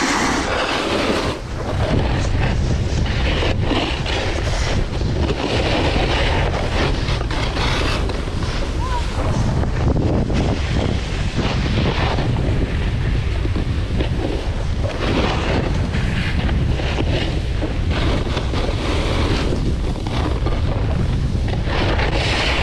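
Snowboard sliding and carving down a groomed slope, its edge scraping the mostly artificial snow in hissing swells every few seconds, under constant wind rumble on the camera microphone.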